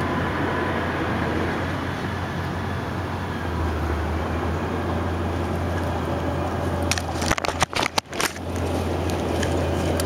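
Leaves and twigs rustling and crackling as a hand works a small bird's nest free from the branches, with a burst of sharp crackles about seven to eight seconds in. A steady low rumble runs underneath.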